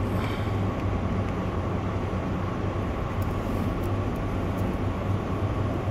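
A steady low motor drone with a faint high tone running evenly through it.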